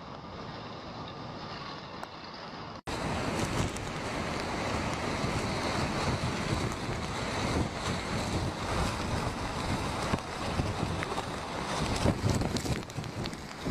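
Typhoon wind gusting on the microphone over rushing, surging water. About three seconds in the sound breaks off abruptly, then comes back louder and fuller.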